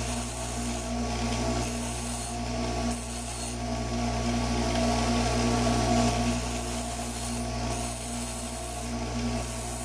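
Bench grinder running with a steady motor hum while the tip of a quarter-inch pilot point drill bit is ground on its coarse wheel to rough out the primary point shape. The grinding hiss comes in about six separate passes, each half a second to a second and a half long, as the bit is pressed to the wheel and lifted off.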